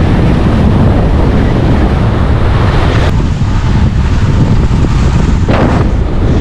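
Strong wind buffeting an action camera's microphone while snowkiting on skis at speed, a loud steady rumble with a noisy hiss over it. A brief louder burst of hiss comes about five and a half seconds in.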